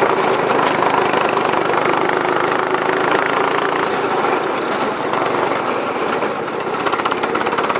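Go-kart's small engine running under throttle, heard from the driver's seat, with a dense steady rushing noise over it.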